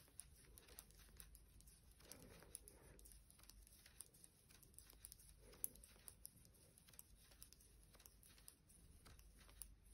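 Near silence, with faint scattered light clicks and rustles of knitting needles and yarn being handled.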